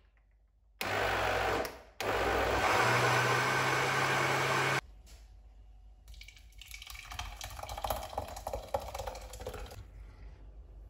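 Bosch food processor's blender jug puréeing cooked peas into soup: a short burst of about a second, then a run of nearly three seconds whose motor note steps up partway through, cutting off suddenly. Afterwards, softer sound of the thick green purée pouring from the jug into a steel saucepan.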